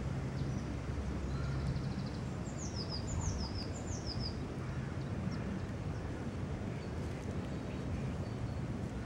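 A small songbird singing, a short rapid trill followed by three quick phrases of high descending notes between about one and a half and four and a half seconds in, over a low steady rumble of outdoor background.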